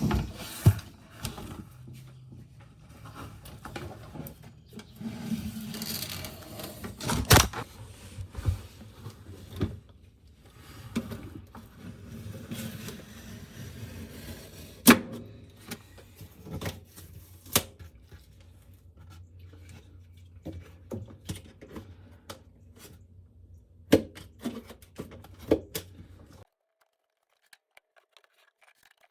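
Work noise from pulling up old flooring: scattered sharp knocks and clacks with stretches of scraping noise in between. The sound cuts off suddenly about 26 seconds in.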